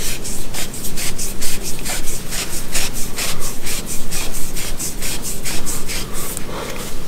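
A hand and cloth rubbing quickly back and forth on a black metal airgun air tube, about four to five strokes a second, stopping about six and a half seconds in.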